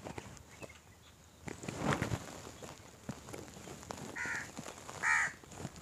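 A crow cawing twice, about four and five seconds in, the second caw louder. A short noise comes about two seconds in.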